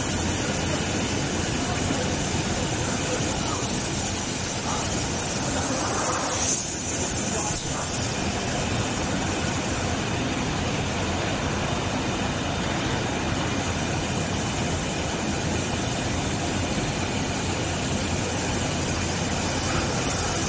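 Steady industrial machine noise, an even hiss-like rush with no clear rhythm or pitch, from bumper-processing machinery running.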